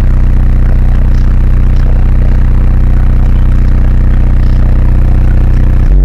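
Sundown subwoofers driven by CT amplifiers in a 1994 Ford Explorer, playing one loud, steady, held low bass note.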